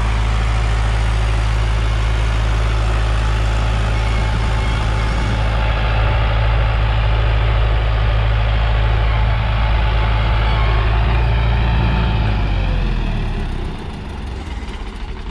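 Preet 6049 Agritrac tractor's diesel engine running steadily under load as it pulls a disc harrow. About twelve and a half seconds in, the engine note falls and the sound drops off, as the revs come down.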